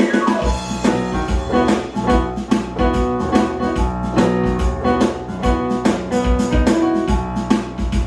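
Keyboard music with drums and bass, an instrumental intro with a steady beat; the bass comes in about half a second in. Recorded through a compact camera's built-in microphone.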